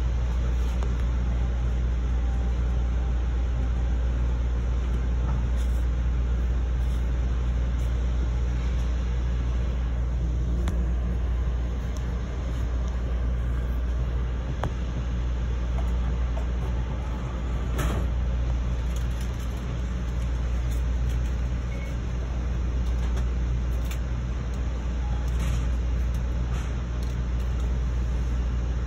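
Steady low rumble and hum inside an Amtrak Silver Star passenger car, with a few faint knocks.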